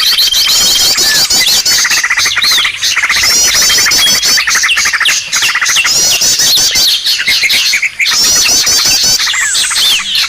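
Loud, dense chorus of small birds' chirps, squeaky calls and rapid trills layered over one another, a bird-luring (pikat) call recording made to draw in small birds. A high, steady whistled note sounds through the first second.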